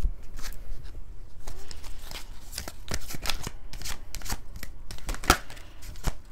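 A deck of oracle cards being shuffled by hand: a quick, irregular run of papery flicks and taps, with one sharper snap near the end.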